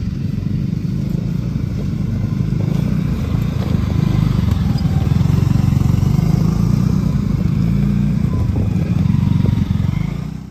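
ATV engine running while riding over a rough, flood-damaged dirt road, with a steady low drone and rattling over the bumps; it cuts off suddenly at the end.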